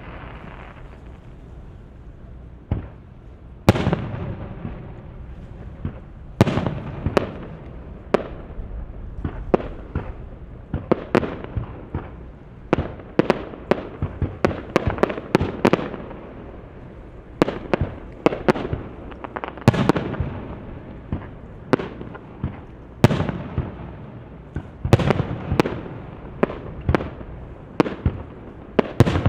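Aerial fireworks shells bursting one after another in a dense barrage, sharp bangs coming in quick irregular clusters, several a second at times, with a low rumble carrying on between them.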